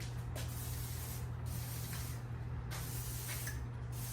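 Aerosol garage door lubricant (Clopay Pro Lube) spraying onto garage door rollers and the torsion spring, hissing in short bursts of about a second each with brief pauses between.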